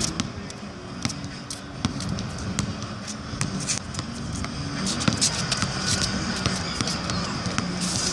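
Basketball being dribbled on an outdoor hard court: a run of sharp bounces at an uneven pace, quickening about five seconds in as the dribbler drives to the basket.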